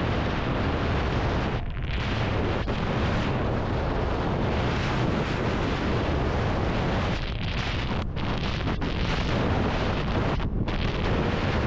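Wind buffeting a GoPro's microphone as a snowboard speeds downhill through powder, a steady loud rush with the board's slide through the snow underneath. A few brief dips in the rush come about 2, 7 to 9, and 10.5 seconds in.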